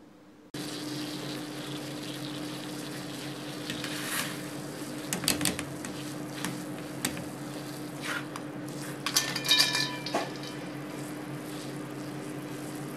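Wire strainer clinking and scraping against a metal saucepan of hot water on a gas burner as pieces of fish are blanched and lifted out, over a steady hiss and low hum. The loudest ringing metal clinks come about nine to ten seconds in.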